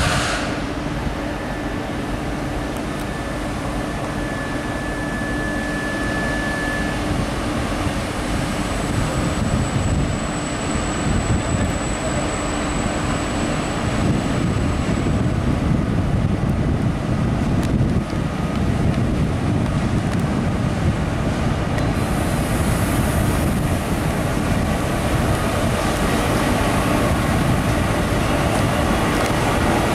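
Bombardier Traxx E.484 electric locomotive hauling a container freight train through a station, a steady rumble of wheels on rail that grows a little louder in the second half as it passes close. Thin high tones sound for a few seconds each in the first half.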